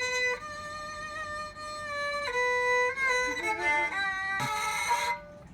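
A bowed string instrument playing a slow melody of held notes, sliding between some of them.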